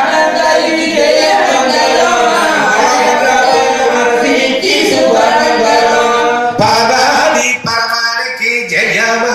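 Devotional singing: voices chanting a melodic hymn, continuous apart from a couple of short breaks in the last third.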